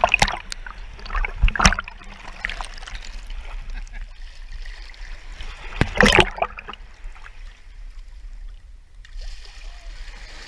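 Shallow sea water sloshing and splashing against a camera held at the waterline. There are loud splashes at the start, about a second and a half in, and about six seconds in, and a steadier hiss of small waves near the end.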